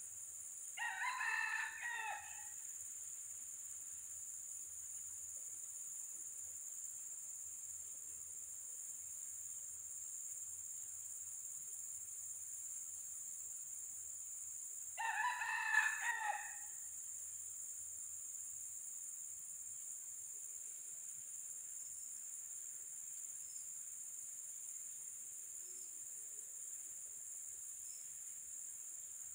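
A red junglefowl cock crows twice, each crow short and about a second and a half long, the second about fifteen seconds after the first. A steady high insect drone, like crickets, runs underneath.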